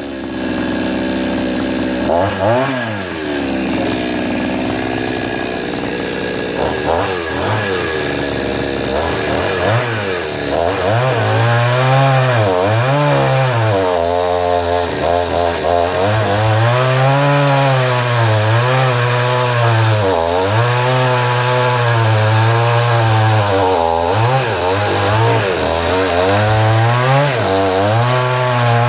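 Charles Jacobs 58cc two-stroke chainsaw, first running with a few short throttle blips. From about ten seconds in it is held at full throttle, its pitch dipping and recovering again and again as the chain works through wood.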